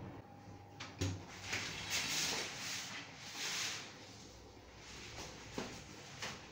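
Movement and handling noise of someone walking through a small bathroom with a handheld phone: a sharp click about a second in, then a couple of seconds of rustling and shuffling, and a few light knocks near the end.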